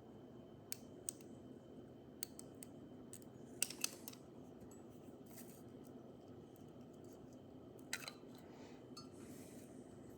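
Scattered small, sharp clicks and taps of small parts being handled by hand, with a louder pair of clicks about three and a half seconds in and another near eight seconds, and a brief soft rustle near the end.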